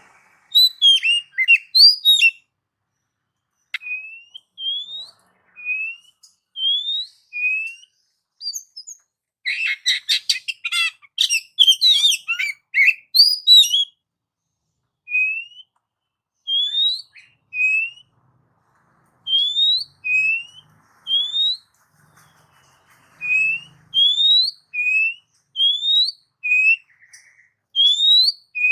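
Oriental magpie-robin (kacer) singing in full song. It gives a run of short rising whistled notes about once a second, with bursts of fast, varied twittering near the start and again around the middle.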